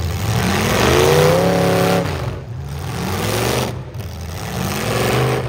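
Engines of full-size demolition derby cars revving, their pitch rising and falling, with two brief dips in loudness about halfway through.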